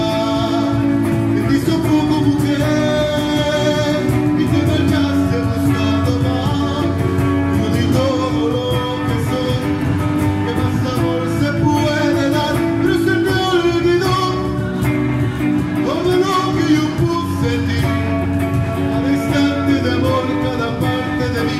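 A small live band playing a romantic ballad, amplified through PA speakers: electric guitar over a cajón beat.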